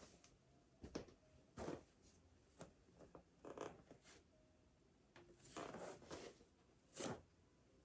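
Soft rustles and brushes of clothing and a body moving on a mat during full prostration bows, about seven short scuffs spread over several seconds.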